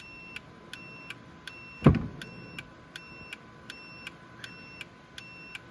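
Aftermarket turn-signal kit's flasher with the blinker on, ticking and beeping in a steady rhythm of about two and a half ticks a second; the indicator is cycling normally, the box putting out 12 volts. A single loud knock about two seconds in.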